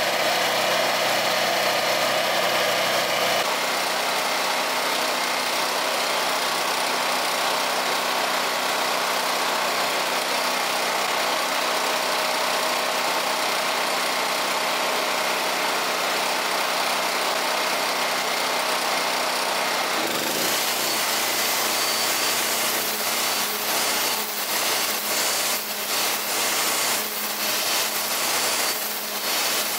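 Nagano NG3100 petrol generator running steadily under load, powering an electric string trimmer. From about twenty seconds in, the trimmer's line is cutting grass and the sound turns ragged and uneven.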